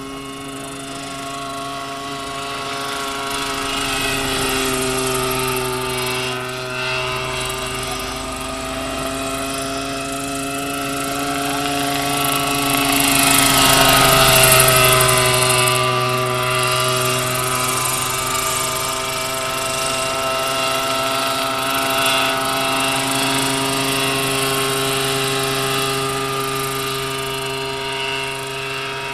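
Large radio-controlled scale model Bell 47G helicopter in flight, its engine and rotors making a steady pitched hum. It grows louder as it passes low and close about halfway through, and the pitch drops slightly as it goes by, then fades a little as it climbs away.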